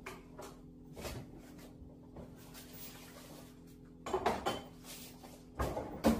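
Groceries and containers being put onto refrigerator shelves: scattered clunks and rattles of packages, bottles and shelf items, loudest in two clusters about four seconds in and just before the end, over a steady low hum.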